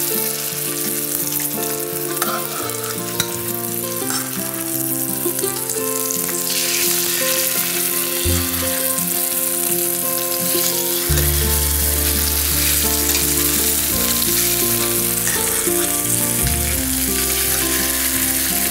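Stuffed chicken breasts searing in hot olive oil in a skillet, with a steady crackling sizzle. Underneath are held low tones that shift pitch every few seconds.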